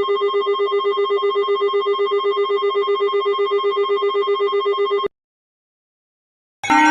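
Electronic emergency-alert tone: one steady, low-pitched electronic tone pulsing rapidly like a phone ring for about five seconds, then cutting off suddenly. After a second and a half of silence, a louder alarm with rising tones starts just before the end.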